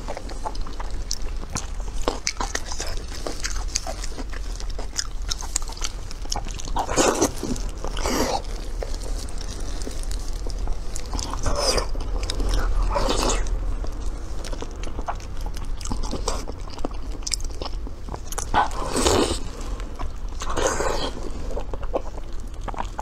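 Close-miked eating sounds of soft braised meat in chili-oil sauce: wet chewing and biting with many small mouth clicks, broken by several louder short wet sucking sounds.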